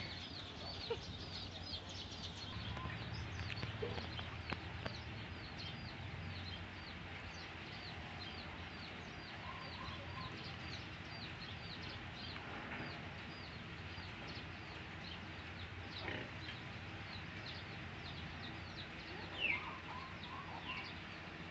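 Birds chirping: a steady run of short, high, falling chirps, about two a second, with one louder chirp near the end.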